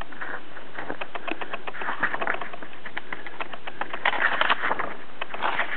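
Paper pages of a thin softcover booklet being handled and turned: rustling with many small crisp flicks, and louder page turns about two seconds in and around four seconds in.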